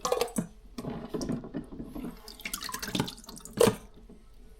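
Water splashing and dripping in short, irregular bursts.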